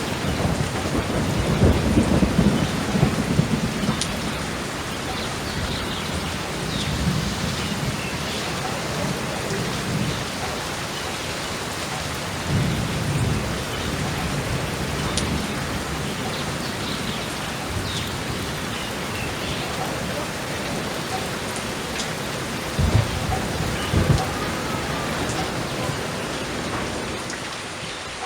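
Steady rain with thunder: a long low rumble in the first few seconds, another around the middle, and two short sharp claps close together near the end.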